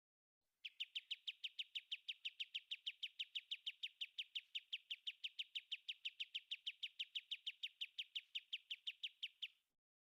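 Kapas tembak bird calling: a rapid, even run of short, clear notes, each sliding downward, about five a second, lasting about nine seconds before stopping.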